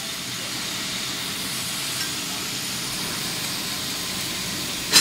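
Steady hissing rush from a submerged arc welding rig and its flux recovery unit at work. A sharp click comes near the end, and the sound dies down after it.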